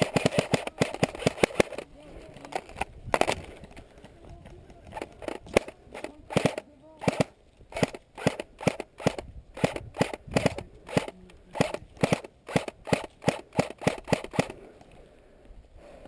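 Airsoft rifle firing. A fast string of shots opens it and a lone shot follows, then a long run of quick single shots, about two to three a second, which stops shortly before the end: semi-automatic fire pulled as fast as the trigger allows.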